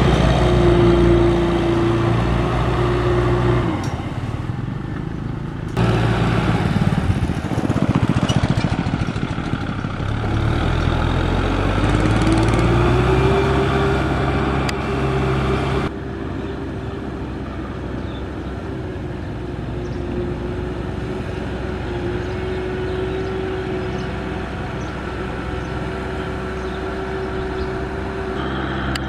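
Kubota M6040 tractor's four-cylinder diesel engine running under load through mud, with its pitch rising as it revs up around twelve seconds in. A steady higher whine sits over it, and the sound changes abruptly a few times.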